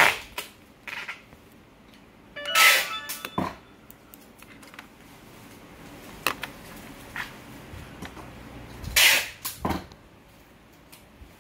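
Plastic clicks and rubbing from handling a Lightning OTG adapter, a wireless mouse's small USB receiver and the mouse: a sharp click at the start, a longer scraping rustle about two and a half seconds in, a few small ticks, and another rustle near the end.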